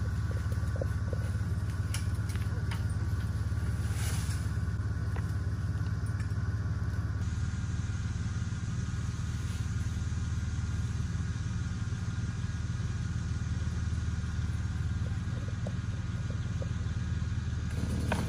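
A steady low engine hum, like a vehicle idling, with a few faint clicks and knocks.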